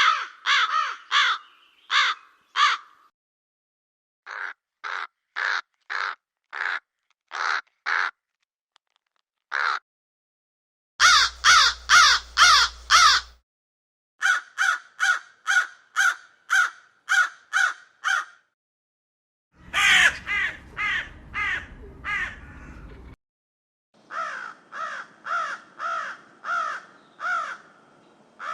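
Crows cawing: runs of short, harsh caws at about two to three a second, in several separate series with brief silent gaps between them. A low background rumble sits under two of the runs.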